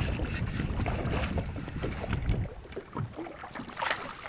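Wind buffeting the microphone in a low rumble that eases about halfway through, with a few sharp clicks near the end.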